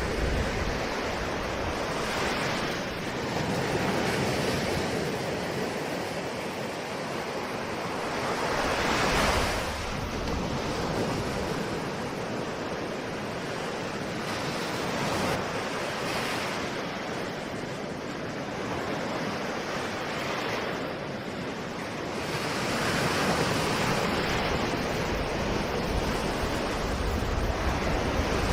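Ocean surf: waves breaking and washing in without a break, swelling every several seconds, with the strongest surge about nine seconds in.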